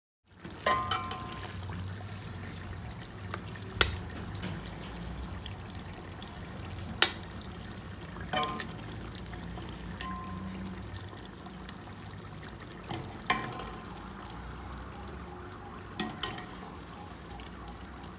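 Nihari stew, thickened with a flour slurry, simmering in a pot with a steady low bubbling. Half a dozen sharp knocks of a spoon against the pot, spaced a few seconds apart.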